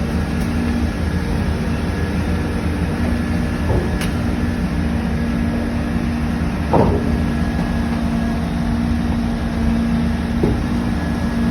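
Engine of heavy construction machinery running steadily, a continuous low rumble with a steady hum. A few brief knocks stand out, about four and seven seconds in.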